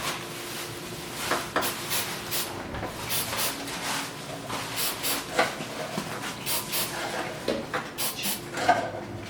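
Plastic pool skimmer float parts being handled and pressed together: a series of light, irregular clicks, taps and rubs.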